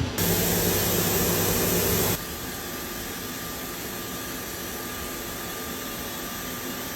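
A motor humming under a steady rush of spraying water for about two seconds, then an abrupt drop to a quieter, steady hiss. This fits an orchard irrigation pump driving water and fertilizer through a hose.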